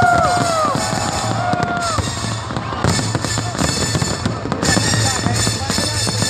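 Fireworks display at full intensity: dense, continuous crackling and banging of many shells bursting at once. A pitched whistling tone glides up and down during the first two seconds.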